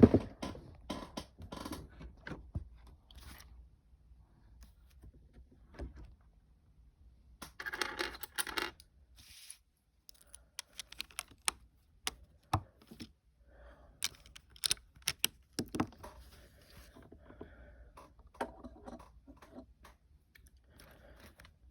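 Hard plastic Lego pieces clicking and clattering as they are picked out, handled and pressed together, with a short burst of rustling about eight seconds in.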